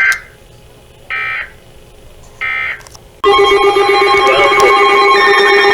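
Three short Emergency Alert System data bursts, each a buzzy warble, about a second apart: the end-of-message code closing a flash flood warning. About three seconds in, a loud, steady, multi-tone alert signal starts: the attention tone for the next warning.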